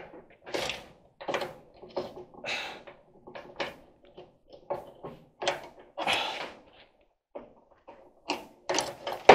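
Hands working a drive belt and its spring-loaded idler pulley inside an appliance's sheet-metal cabinet: irregular knocks, clicks, rattles and scrapes of metal parts being handled.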